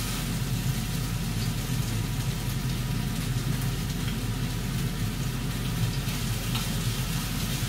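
Fish frying in a pan, a steady sizzle, with a steady low hum underneath.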